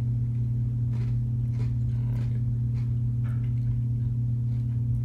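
Steady low hum, with faint irregular crunching from someone chewing an Oreo cookie.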